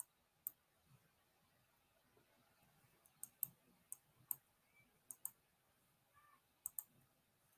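Faint, scattered clicks of someone working a computer, about a dozen, several of them in quick pairs.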